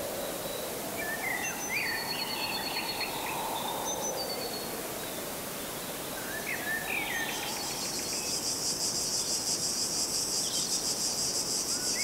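Small birds chirping in short, scattered notes with a few thin high whistles; a little past halfway an insect starts a high, rapidly pulsing call that then runs on steadily.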